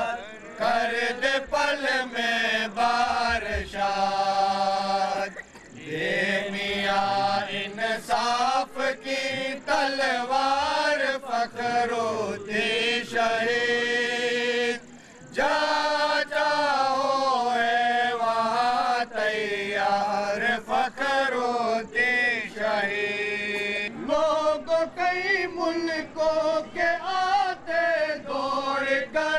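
A group of Bohra Muslim men chanting devotional verses together, unaccompanied, with short breaks for breath about five and fifteen seconds in.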